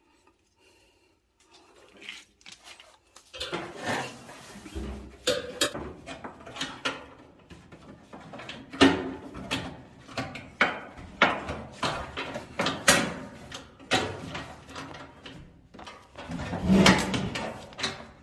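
Irregular clunks, knocks and rattles of hands working inside a clothes dryer's metal cabinet, fitting a new drive belt around the drum and the pulley. The first three seconds or so are nearly quiet.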